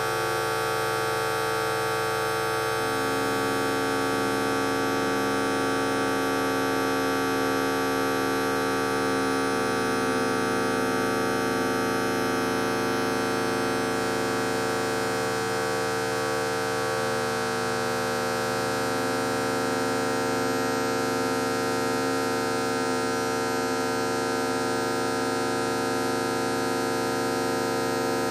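A fart sound effect slowed down enormously by time-stretching, heard as a steady droning hum of many held tones at once. The lowest tones shift slowly every few seconds.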